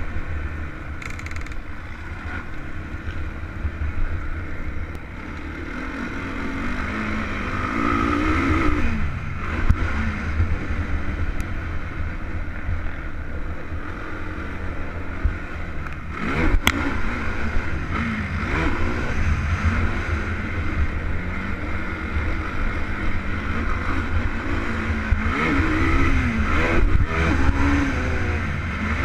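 Stock Honda TRX450R quad's single-cylinder four-stroke engine running under way, its pitch climbing and dropping again and again as it is revved through the gears. Wind rumbles on the microphone, and there is one sharp knock about halfway through.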